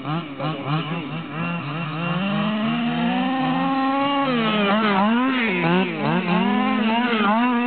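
Small two-stroke petrol engines of large-scale Baja RC buggies revving up and down over and over as they are driven. The pitch rises and falls quickly under throttle.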